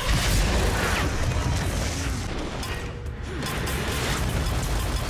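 Television action soundtrack: dramatic music mixed with heavy booms and crashing impacts.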